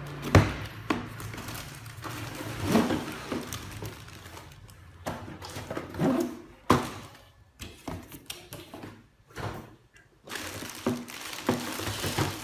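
A cardboard toy box being opened and its plastic parts handled: irregular knocks, thunks and rustling, the sharpest knock about half a second in.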